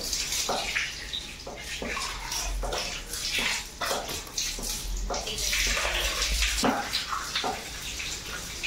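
Tap water running and splashing over a puppy being rinsed in its bath, with uneven splashes onto the tiled floor.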